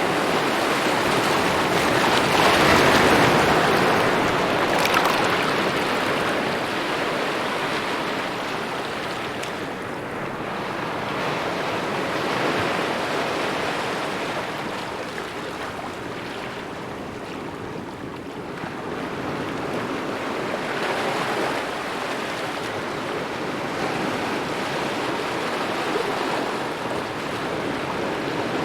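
Small ocean waves lapping at the shore, a steady wash of water that swells and eases every several seconds.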